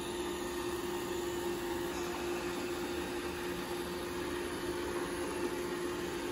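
iRobot Roomba 614 robot vacuum running across carpet: a steady whirring hum with one constant mid-pitched tone through it.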